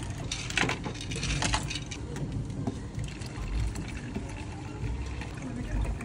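Drinks poured from plastic cocktail shakers into plastic cups: mango tea and milk tea splashing in over ice, with some clinking. The splashing is strongest in the first second or two.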